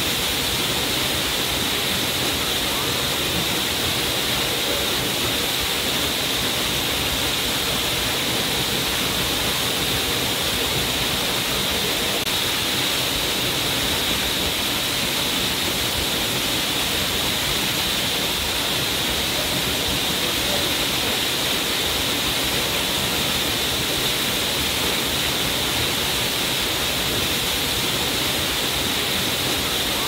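Waterfall pouring into a rock pool: a steady, unbroken rush of falling water that never changes in level.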